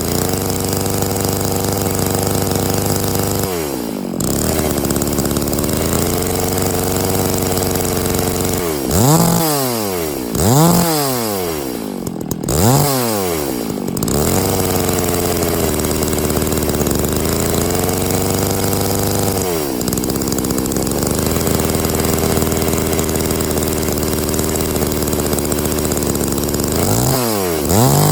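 Stihl MS660 two-stroke chainsaw with a 64-inch lo-pro milling bar, running free at high revs. It holds steady for several seconds at a time, and a few times the throttle is let off and opened again, so the engine note drops and climbs back. The saw is being run up without cutting to get oil onto the long bar and chain.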